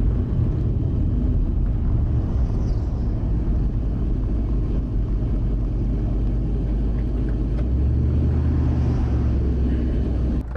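Turbocharged LS1 V8's exhaust note from the Mercedes wagon cruising down the road, a steady deep drone mixed with tyre and wind noise. The engine note shifts about eight seconds in.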